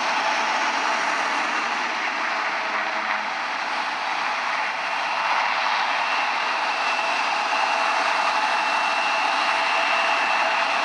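Embraer E170's twin GE CF34 turbofan engines running at taxi power as the jet rolls slowly: a steady rushing noise with a high engine whine that grows a little stronger about six seconds in.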